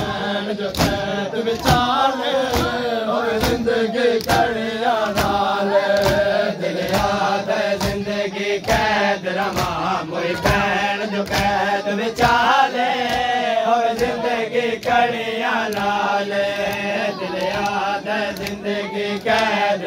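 Crowd of men chanting a Muharram lament (noha) together, with a steady beat of hand-slaps on the chest (matam) keeping time throughout.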